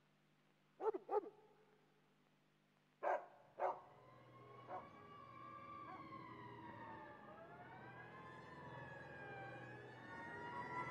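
A dog barks four times, in two quick pairs. Then a police siren wails in, its pitch slowly rising and falling and growing louder as it approaches.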